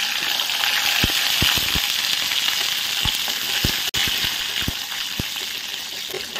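Shallots and curry leaves sizzling in hot oil in an aluminium kadai as they are stirred with a wooden spatula. The sizzle is a steady hiss, with scattered soft knocks of the spatula against the pan.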